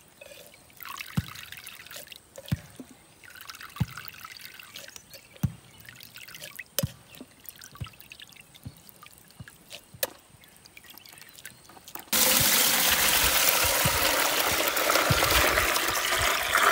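Watermelon juice trickling and dripping through a plastic strainer into a pot as pulp is pressed with a steel tumbler, with occasional light knocks. About twelve seconds in, it gives way abruptly to a loud, steady stream of juice pouring into frothy juice in the pot.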